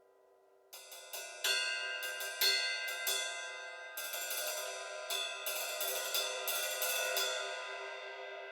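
Sabian AAX Stage Ride 20-inch ride cymbal struck repeatedly in an uneven pattern, its bright ringing wash building between hits. The strikes begin about a second in and stop a little before the end, leaving the cymbal ringing down.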